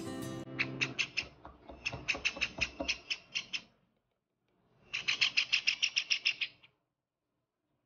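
Cinnamon Java sparrow chick begging for hand-feeding formula with rapid, repeated short chirps, about five or six a second for some three seconds. After a brief pause comes a louder, faster burst of begging calls about five seconds in.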